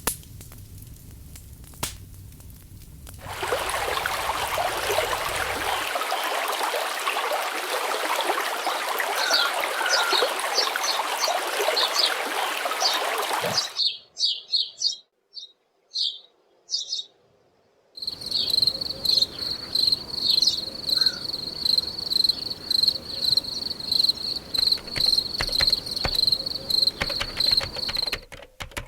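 A run of separate nature-sound clips. First birds chirp over a dense rushing noise, then a few isolated bird chirps sound in near quiet, then insects trill on one steady high note that pulses about twice a second.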